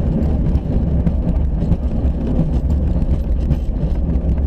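Steady low rumble inside a Duo Discus glider's closed cockpit on the runway, with a few faint rattles.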